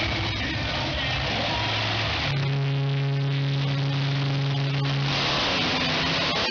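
Monster truck engine running hard, settling into one steady high note held for about three seconds in the middle, over a constant rushing noise.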